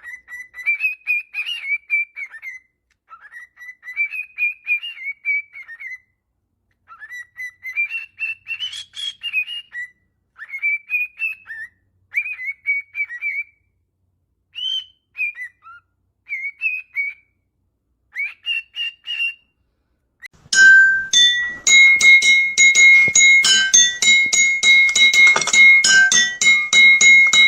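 A parrot chattering and whistling in a run of short, bending phrases. Music with steady high notes starts about twenty seconds in.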